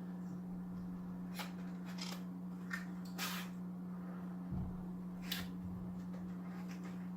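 Small cardboard box being opened and handled: a few short scrapes and rustles of cardboard and packing, with a soft thump about four and a half seconds in, over a steady low hum.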